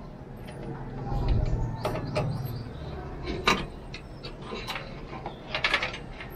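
Hands handling cables and plugging a connector into an ARGB fan controller hub inside a PC case: rustling and a dull low rumble a second or two in, one sharp click about halfway, and a quick run of clicks near the end.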